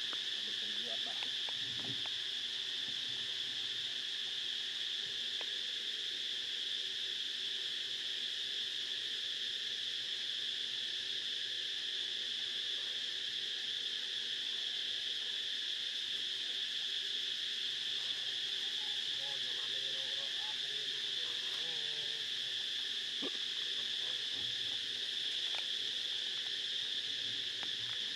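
A steady insect chorus: a continuous high-pitched drone that never lets up, with a few faint, brief calls underneath about two-thirds of the way through.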